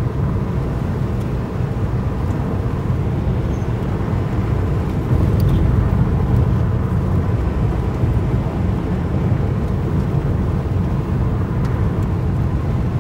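Steady low rumble of wind buffeting the microphone in strong storm winds, a little louder about five seconds in.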